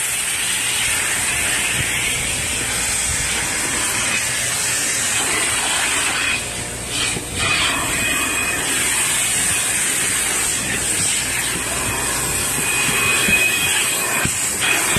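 Car-wash vacuum hoses running, a steady loud hiss of rushing suction air as the nozzles are worked over the carpet, dipping briefly about seven seconds in.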